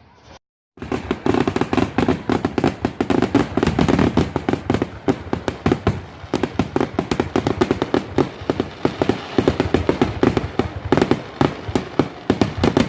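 Firecrackers popping in a rapid, continuous string of sharp cracks, many a second. They start abruptly under a second in, after a brief silence.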